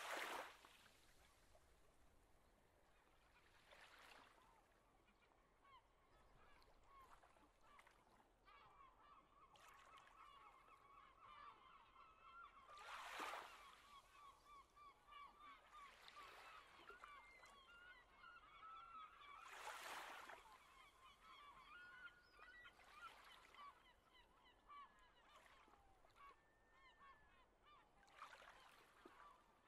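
Faint, continuous chattering of many distant birds calling over one another, setting in after the first quarter. A few brief, louder whooshes come through, the strongest near the middle and about two-thirds of the way through.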